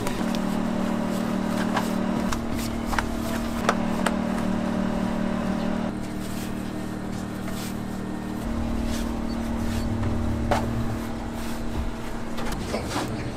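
A steady low motor hum, with scattered light clicks and taps over it.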